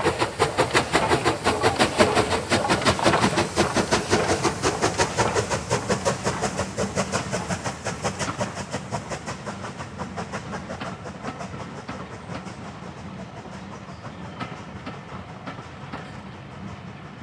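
Rebuilt Bulleid West Country class steam locomotive 34027 'Taw Valley' passing with a train of coaches: the rapid, even chuff of its three-cylinder exhaust, loudest at first and fading away over the first ten seconds or so. The coaches' wheels then go on rumbling and clicking over the rails.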